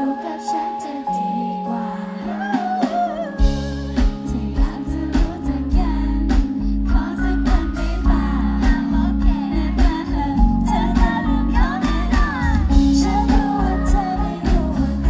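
Pop song with female vocals, played loud over a stage sound system. A heavy bass line and a steady beat come in about three seconds in, under the sung melody.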